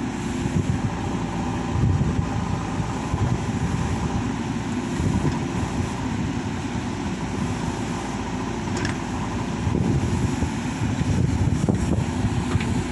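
Heavy diesel engine running steadily under load, with a couple of faint clicks in the second half.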